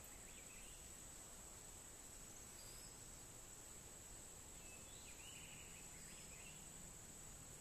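Near silence outdoors: a steady, faint high-pitched insect drone, with a few faint bird chirps near the start and again past the middle.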